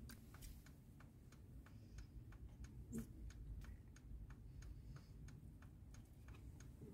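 Faint, even ticking of a car's indicator relay inside the cabin, about three ticks a second. A soft knock comes about three seconds in.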